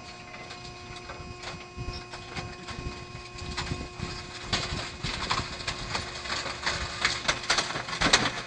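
RAM-JET hydraulic trash compactor running with a steady hum as its ram presses a television, the casing cracking and snapping more and more often from about halfway through.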